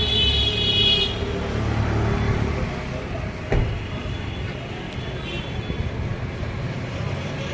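Road traffic and vehicle noise with a low, steady rumble. A brief high-pitched tone sounds in the first second, and there is a single sharp knock about three and a half seconds in.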